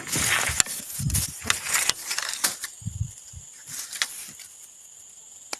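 Irregular rustling and crunching handling noises, loudest in the first three seconds, over a steady high-pitched insect drone.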